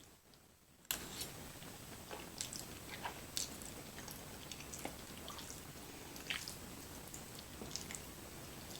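Close-miked chewing of creamy chicken fettuccine alfredo, with many irregular short wet clicks. The sound comes up suddenly about a second in.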